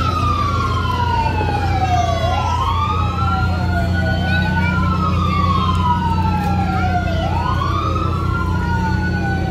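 Fire truck sirens wailing in a parade, several at once and out of step. Each rises quickly and falls slowly, about every two to three seconds, over a steady low engine rumble.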